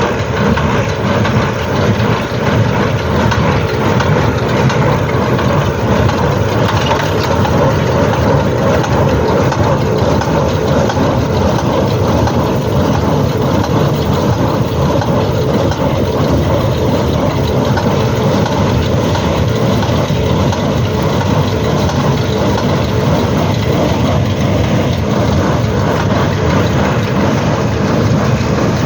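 Shaktiman square baler and the tractor driving it running steadily while making bales: a continuous engine drone mixed with the baler's mechanical running noise.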